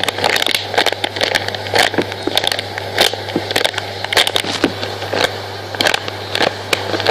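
Irregular crackling and clicking handling noise, dense throughout, over a steady low hum.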